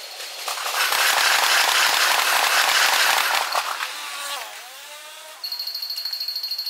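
Sped-up sound of a train passing: a loud rushing clatter of wheels for about three seconds that trails off into quick falling whines. About five seconds in, a level-crossing warning bell starts ringing as a rapid, high-pitched pulsing, raised in pitch by the sixfold speed-up.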